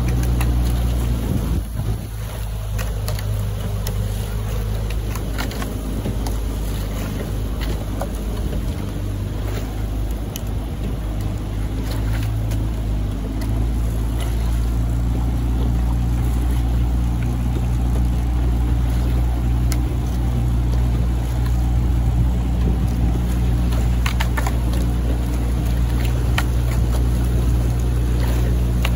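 Outboard motor of a coaching launch running steadily at cruising speed, a low even hum, with water rushing past the hull.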